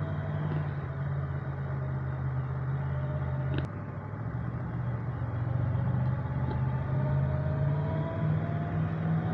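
Motorcycle engine running at a steady speed, heard from a camera on the bike. About three and a half seconds in there is a short click, after which the engine runs a little quieter.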